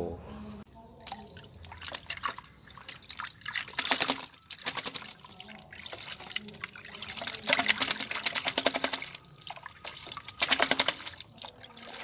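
Shampoo water splashing and dribbling in a tub as a hand scoops and throws it over a zebra dove being bathed, in several spells of quick splashing.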